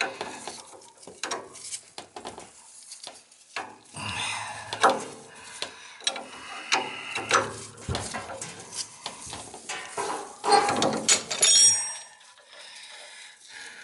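Wrenches on a steel oil-line fitting at a fuel-oil tank outlet as it is turned loose: irregular metal clicks, clanks and scraping, with a ringing metal clink near the end.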